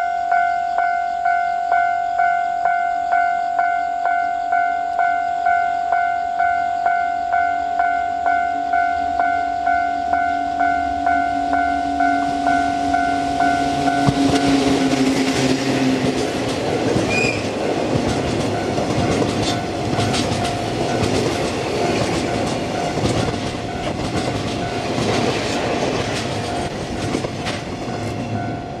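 A warning bell rings steadily about twice a second. About halfway through, a locomotive-hauled freight train passes, its wheels clattering rapidly over the rail joints and drowning out the bell until the train has nearly gone.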